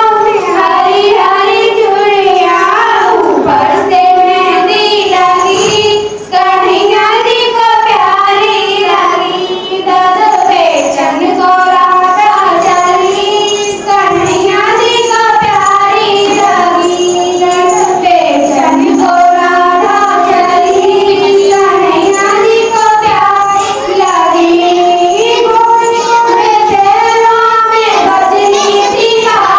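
A song with a high voice singing the melody over musical accompaniment, running without a break.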